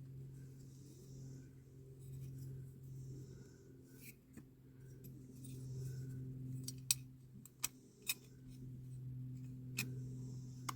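Small hand tools clicking and tapping on a bent metal part of a die-cast toy car while it is reshaped, a handful of sharp clicks from a few seconds in, over a steady low hum.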